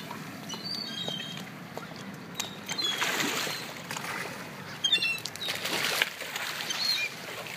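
A school of fish, skipjack tuna per the title, splashing and thrashing at the water's surface as they go for tossed bait shrimp. The splashing swells about three seconds in and again around five to six seconds in.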